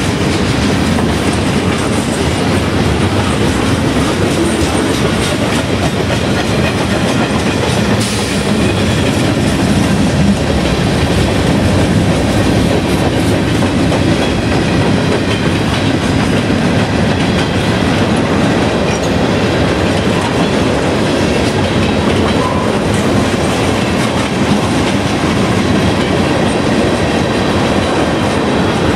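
Canadian National freight train's covered hoppers and tank cars rolling past close by, a steady rumble of steel wheels on rail.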